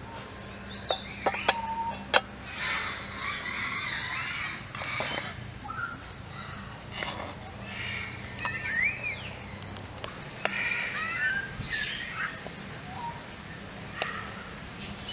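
Several birds chirping and calling in short rising and falling notes all through. A few sharp knocks come about one to two seconds in, the loudest just after two seconds.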